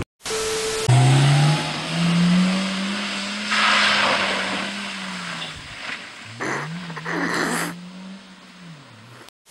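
Small hatchback car driving through deep floodwater on a road: the engine rises and then holds steady, and water splashes up from the wheels about four seconds in. The engine note fades away and then rises again, with more splashing near the end.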